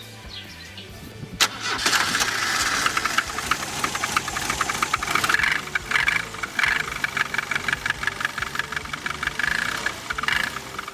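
Ford Pampa's carburetted engine started about a second and a half in, then running with a fast ticking knock that sounds like valve noise. The owner traces it to the carburettor over-fuelling, ethanol falling onto the piston crowns, typical of a sticking or punctured float.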